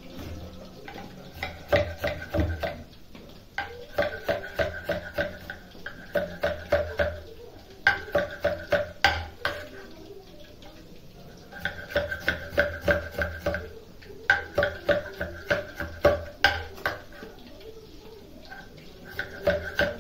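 Large kitchen knife chopping onions on a round wooden chopping board, the blade knocking on the wood in quick runs of about four or five strokes a second, with short pauses between runs.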